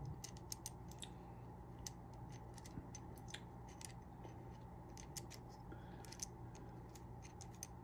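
Faint, scattered small metallic clicks and scrapes of a screw being threaded back into a Crosman 157 airgun, over a low steady hum.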